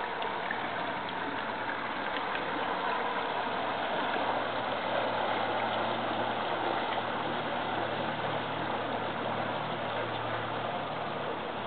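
Deck boat's engine running at low speed with water churning, its low hum growing stronger about four seconds in, as the boat is driven onto a floating drive-on dock.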